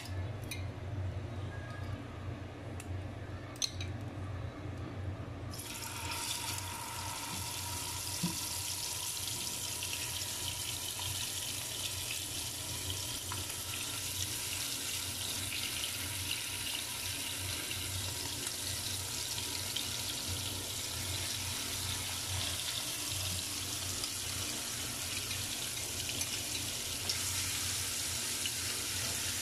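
Marinated prawns frying in hot oil in a pan: a steady sizzle that starts about five seconds in and runs on, after a few light clicks over a low hum.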